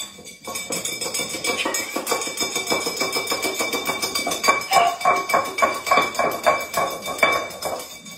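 A dog banging and shoving an empty ceramic food bowl across a hard floor: rapid clattering knocks, several a second, with the bowl ringing after each, growing louder about halfway through. It is a demand for breakfast.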